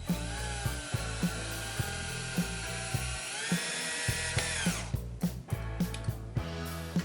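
Power drill running as it bores a pilot hole in wood, a steady whine that steps up in pitch after about three seconds and stops abruptly just under five seconds in. Background music with a steady beat plays throughout.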